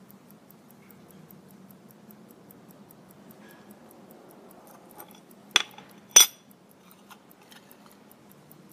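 WW2 Elgin pocket watch ticking steadily, about five ticks a second. A little past halfway, two sharp metallic clinks as the watch's loose metal case lid is handled.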